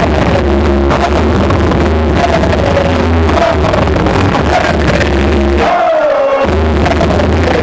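Loud hip-hop music with a heavy bass beat and vocals over it. The bass drops out for under a second a little under six seconds in, then comes back.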